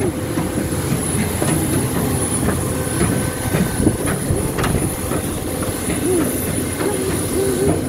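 Loud, steady rumble of aircraft and ground equipment running on an airport apron, with a high steady whine over it. Knocks about once a second from footsteps on the metal treads of aircraft boarding stairs.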